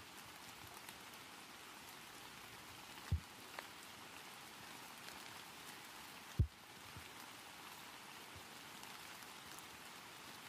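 A steady, even hiss, with a dull low thump about three seconds in and another a little past six seconds.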